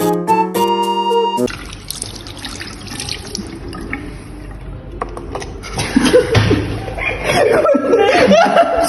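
Electronic keyboard music that stops about one and a half seconds in. A steady hiss follows, and indistinct voices come in over the last three seconds.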